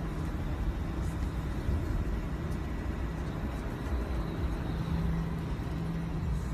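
Steady low rumble of a vehicle's running engine heard from inside the cabin, with a constant low hum and no sharp events.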